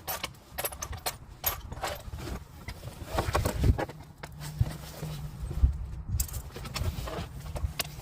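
Irregular metallic clicks and knocks from hand tools and fittings being worked on in an engine bay, over a low rumble.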